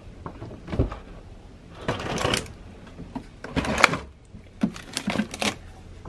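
A refrigerator's freezer drawer being pulled open with a knock, then frozen food bags rustling and clattering as an ice cream cup is taken out from among them.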